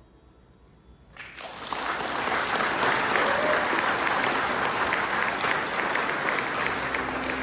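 Audience applauding: after a brief hush, the clapping breaks out about a second in and carries on steadily.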